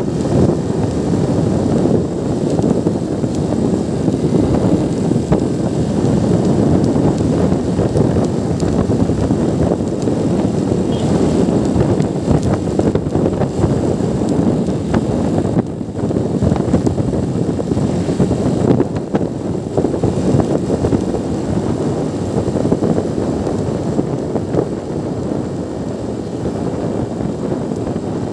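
Steady wind rumble on the microphone and running noise of a motorcycle ridden at a steady cruise.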